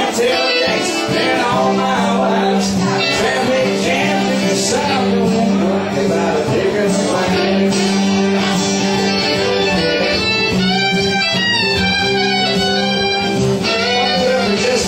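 A small band playing live: acoustic guitar strumming and drums under a singing voice. A wavering high melody line stands out from about ten seconds in until near the end.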